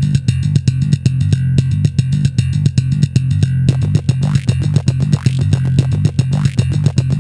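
Background music with a prominent bass line and a steady beat.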